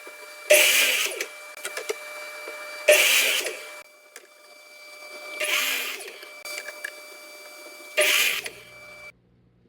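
A woodworking power tool runs with a steady whine and cuts into wood in four short bursts, about two and a half seconds apart. It stops abruptly near the end.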